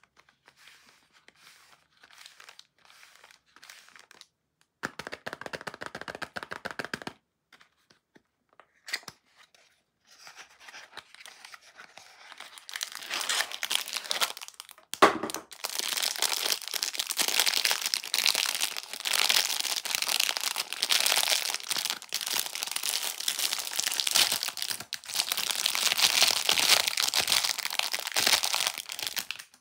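Cardboard soap box handled and opened, with a short rasping tear about five seconds in. Then a bar of soap in clear cellophane wrap is slid out and the cellophane is crinkled and torn open. The crinkling is continuous and loudest through the second half, after a sharp crack about halfway.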